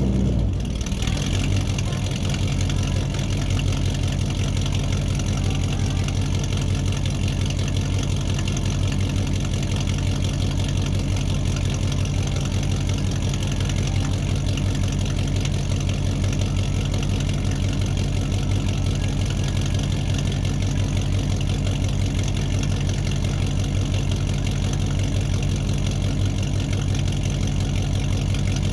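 An engine idling steadily, a low, even chugging that holds unchanged throughout.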